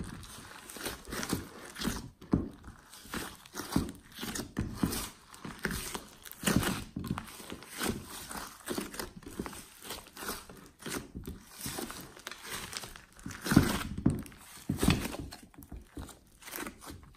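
Hands squeezing and kneading a large lump of thick slime: irregular sticky squelches with many sharp little clicks and crackles as it is folded and pressed.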